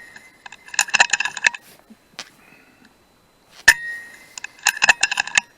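A sharp shot from a .177 PCP air rifle a little past halfway, with a short metallic ring. There are two flurries of rapid metallic clinks, one about a second in and one near the end.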